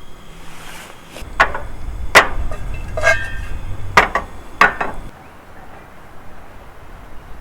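Four sharp knocks spread over about three seconds, with a brief ringing clink between them and a low rumble underneath.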